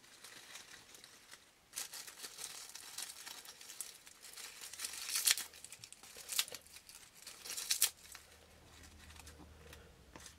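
Dry leaf litter crinkling and crackling as fingers press leaves into place in a plastic tub of substrate. There are irregular crackles from about two seconds in, with the loudest near the middle, and it dies down near the end.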